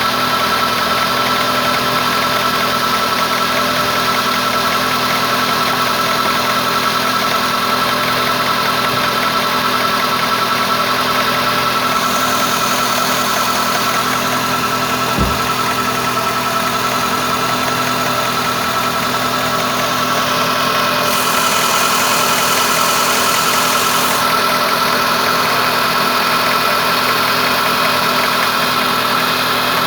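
Renault Logan 1.6 8-valve four-cylinder engine idling steadily from a cold start, with a light background tapping like a pin striking metal. The owner says the noise appears only when the engine is cold and goes away once it warms up; mechanics have called it normal.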